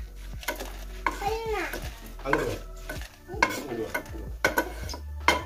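Flat metal spatula scraping and clinking against a black iron pan as dry-roasted red chillies are scooped out into a steel bowl.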